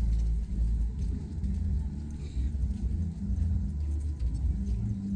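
A loud, uneven low rumble, with faint scattered ticks and knocks above it.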